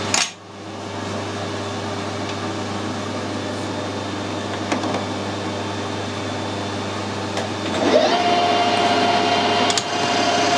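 Metal lathe: a clunk at the start, then a steady hum while the chuck stands still. About eight seconds in the spindle starts up and runs with a steady gear whine.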